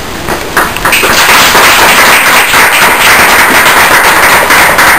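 Audience applauding, a dense clatter of hand claps that starts about a second in.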